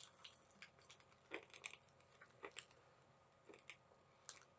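A person chewing a Vimto-flavoured chewy candy: faint, irregular mouth clicks.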